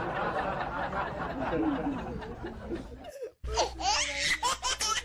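Laughter sound effects. A dense laugh runs for about three seconds and cuts off abruptly, then after a brief gap a different, higher laugh starts with rapid repeated 'ha' pulses.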